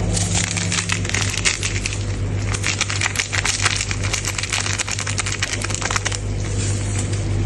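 Rapid, dense clicking and clinking, like small hard objects or a utensil knocking against a pot or dish. It stops about six seconds in, over a steady low hum.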